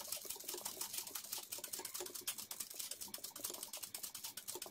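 Ordinary domestic sewing machine running steadily while satin-stitching a petal fill in a hoop, its needle strokes making a rapid, even clicking.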